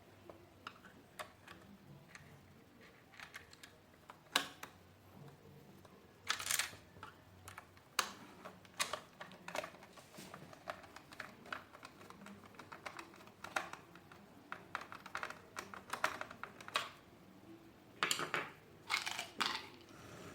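Irregular small clicks, taps and brief scrapes of plastic vacuum-cleaner parts being handled and fitted together during assembly.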